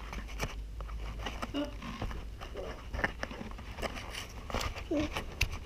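Handling noise from a body-worn camera moving low over a hardwood floor: scattered clicks, taps and rubbing. A few short, faint vocal sounds break in about one and a half, two and a half and five seconds in.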